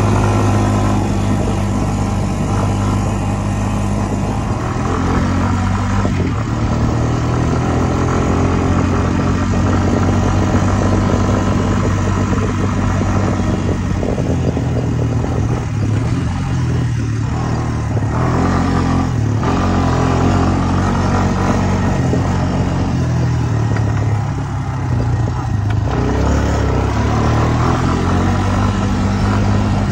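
Honda ATV's single-cylinder four-stroke engine running under way as the quad is ridden, its pitch rising and falling several times with the throttle.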